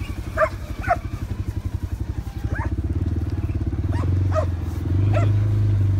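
Vehicle engine running at low speed with an even, rapid pulse, getting louder about four seconds in. Several short, sharp calls cut in over it.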